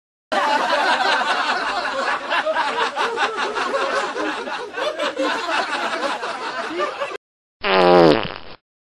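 A large audience laughing, many voices at once, for about seven seconds. Near the end a short sound falls steeply in pitch.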